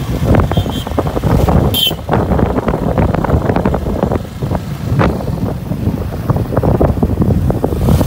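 Wind buffeting the microphone on a moving motorcycle, over the motorcycle's running engine: a thick, gusty low rumble with frequent quick thumps. A brief high-pitched chirp comes about two seconds in.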